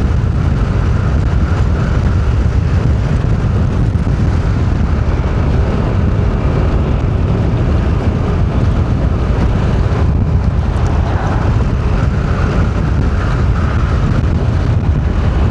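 Steady road and engine rumble of a moving car, with some wind noise on the microphone.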